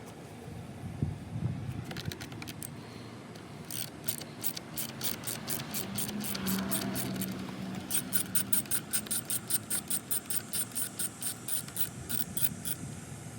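Sharp metallic clicks, scattered at first, then a steady run of about four a second for several seconds: a socket ratchet being worked on the fuse block's fasteners.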